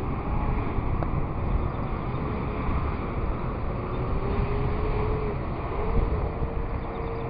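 Wind buffeting the microphone as a steady, fluttering low rumble, with a faint thin tone in the background that wavers, glides up around the middle and then holds steady.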